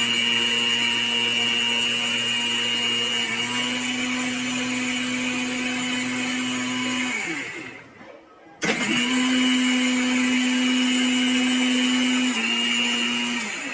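Butterfly Magnum mixer grinder's motor running at speed with a steady high whine, winding down about seven seconds in, then switched on again a second later and run for about five seconds more before winding down.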